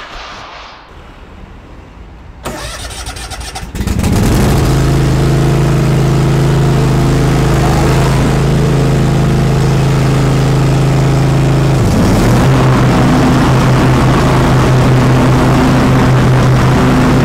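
Cub Cadet XT3 lawn tractor's engine cranked by its starter and catching after about a second, then running steadily on a test run as the tractor is driven; its note dips and changes about twelve seconds in.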